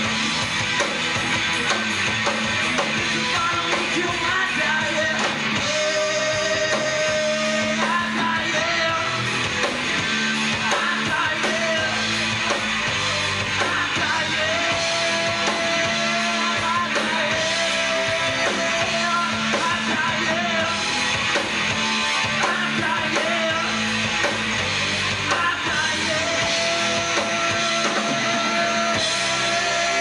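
Live rock band playing a song: two electric guitars, bass guitar and drums, with long held notes that bend in pitch over the dense, steady band sound.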